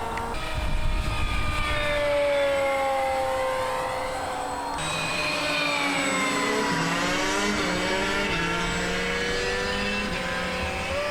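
RC model airplane's motor and propeller whining in flight. The pitch slowly slides down and back up as the plane passes by.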